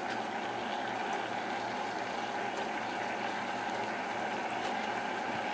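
Curry gravy bubbling at a boil in a nonstick frying pan: a steady, even bubbling hiss.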